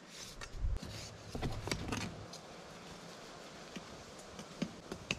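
Shovel digging in the dirt beside a deer feeder's leg: a few irregular scrapes, knocks and clinks, most of them in the first two seconds.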